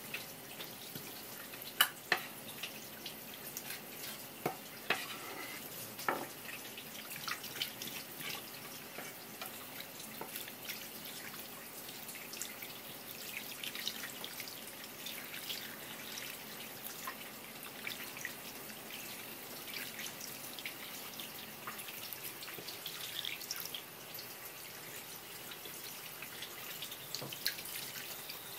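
Tap water running from a kitchen sprayer hose onto hands and raw scallop meat being rinsed, splashing and dripping, with many small wet clicks and a few sharper knocks about two seconds in and again around five to six seconds in.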